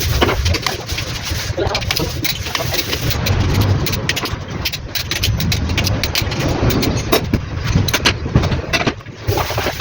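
Car engine running steadily, with many short sharp ticks and clicks over the low hum.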